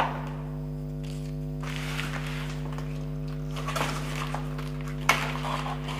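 A steady low hum that stays on one pitch throughout, with faint handling rustles and a sharp click about five seconds in.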